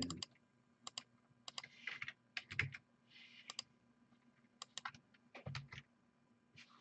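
Faint typing on a computer keyboard, keys tapped in short irregular runs, with a couple of soft knocks.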